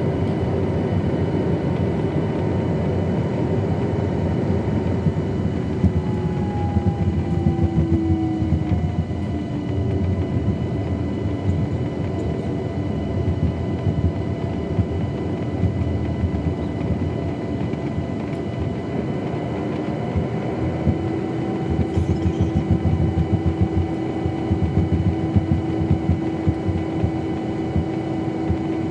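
Cabin noise of a Boeing 737-900 taxiing, its CFM56-7B turbofans at low thrust: a steady rumble with an engine hum whose pitch slides down several seconds in and steps up slightly past the middle. Irregular knocks and rattles come through from the wheels rolling over the taxiway.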